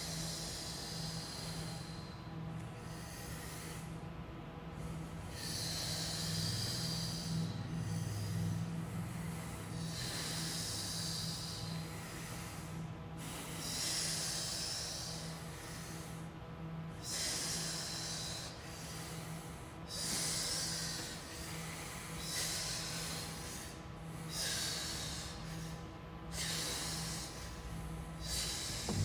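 People breathing loudly and deliberately, long hissing breaths in and out one after another every two or three seconds, over a faint steady hum.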